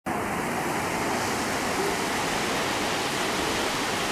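Sea surf breaking and washing into the shallows, a steady rush of noise.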